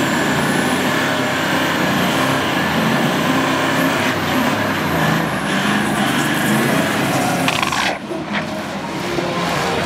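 Toyota LandCruiser VDJ79's compound twin-turbo V8 diesel revving hard and held on high revs during a burnout, the rear tyres spinning in smoke, the engine's pitch wavering up and down. The sound drops briefly and changes about eight seconds in as the truck moves off.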